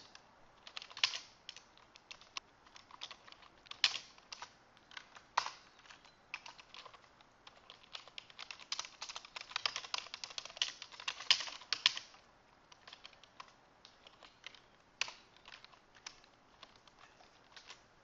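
Typing on a computer keyboard: irregular runs of key clicks, fastest and densest a little past the middle, then only a few scattered keystrokes near the end.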